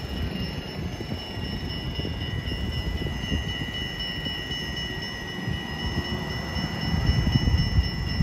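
Street ambience: an uneven low rumble that grows a little louder near the end, under a steady high-pitched whine of several tones.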